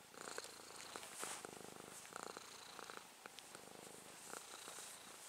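Domestic cat purring close up while its chin and cheeks are rubbed; a soft, continuous purr that swells and eases about once a second.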